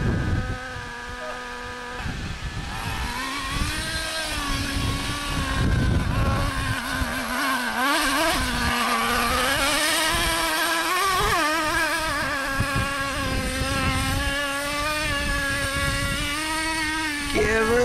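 Nitro RC truck's small two-stroke glow engine running with a high, buzzing note. It holds steady briefly, then rises and falls again and again as the throttle is worked while the truck drives and climbs a steep dirt hill.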